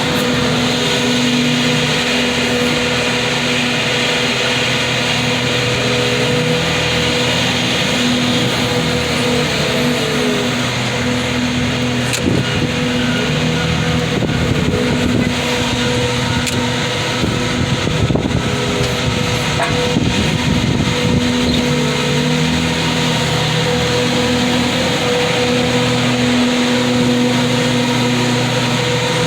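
Engine running steadily throughout, with a constant hum and a lower note that steps up and down in pitch now and then as the speed changes.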